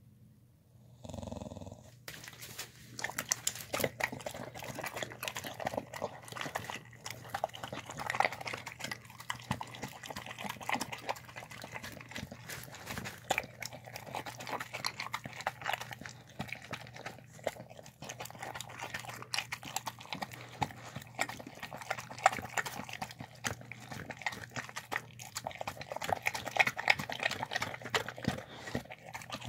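Short-muzzled dog eating a soft meal of chicken, rice and vegetables from a plastic container, close up: a steady run of wet chewing, smacking and lapping with small clicks, starting about two seconds in.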